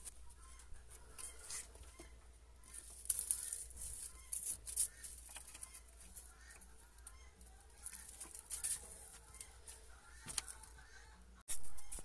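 Dry rustling and crackling of wood-shaving nest bedding in irregular bursts, with faint clucking-like animal calls in the background.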